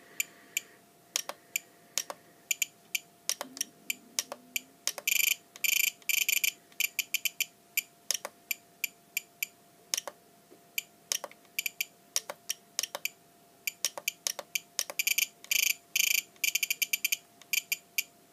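Spektrum DX8 radio transmitter giving short beeps as its scroll roller is clicked and pressed through the expo menu, single beeps about once a second with two fast runs of beeps where the roller is spun. A faint steady hum runs underneath.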